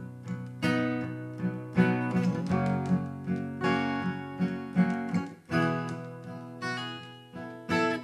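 Solo steel-string acoustic guitar playing a slow intro of strummed chords, each chord struck about once a second and left to ring.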